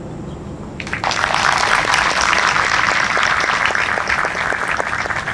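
Audience applauding: many people clapping, starting suddenly about a second in and holding steady.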